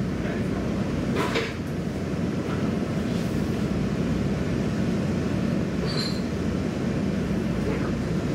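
Running noise of a diesel sightseeing railcar heard from inside the carriage: a steady low rumble of engine and wheels on the track, with a single sharp click about a second in.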